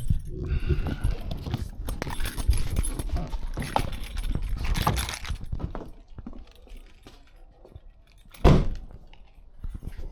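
Rustling and clattering of someone climbing out of a low sports car's cabin, with many small knocks, then a single loud thump about eight and a half seconds in.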